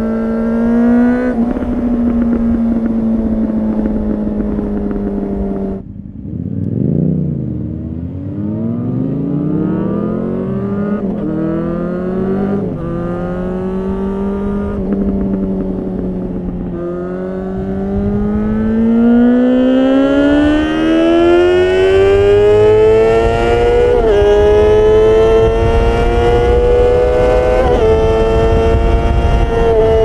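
2004 Honda CBR600RR's inline-four engine breathing through a catless LeoVince slip-on muffler, heard from the rider's seat on the move. It holds steady revs, then the throttle snaps shut about six seconds in and a quick rev blip follows. Later comes a long climb in revs with two short dips at gear changes, as wind noise grows with speed.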